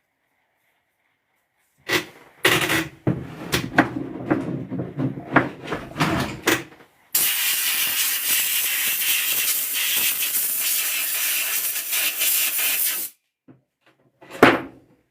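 Several clicks and knocks of small parts being handled, then a steady hiss from a pressurised jet for about six seconds that cuts off sharply. One loud knock comes near the end.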